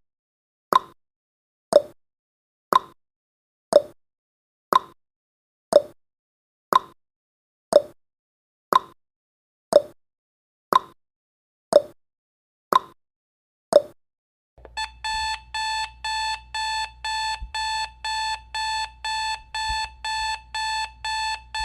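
Countdown timer sound effect: a clock ticks once a second, then about fifteen seconds in, when the count reaches zero, an alarm-clock beep starts, pulsing about three times a second.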